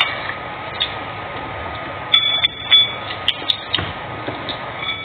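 A spoon stirring food in a bowl: a few sharp clinks and a short choppy scrape with a thin squeak about two seconds in, over a steady background hum.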